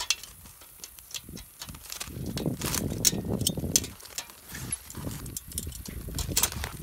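Metal grill tongs clicking and scraping against foil-wrapped packets and the grill grate in quick, irregular clinks, with foil crinkling. A low rumble comes in about two to four seconds in.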